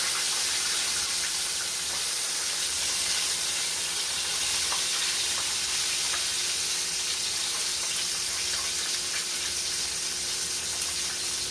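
Chicken frying in a pan: a steady sizzle, with a few light clicks.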